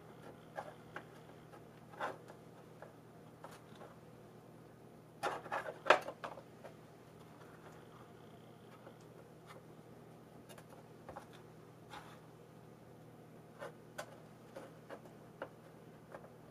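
Faint scattered taps and rustles of hands handling a small plastic pot of potting soil while setting herb cuttings into it, with a short cluster of louder knocks about five to six seconds in.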